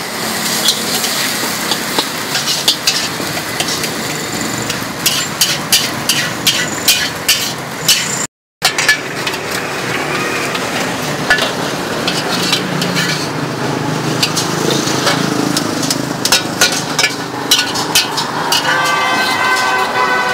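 Metal ladle scraping and clacking against a steel wok as noodles and greens are stir-fried, over steady sizzling, with many quick sharp clinks. The sound drops out for a moment about eight seconds in, then the stirring and sizzling go on.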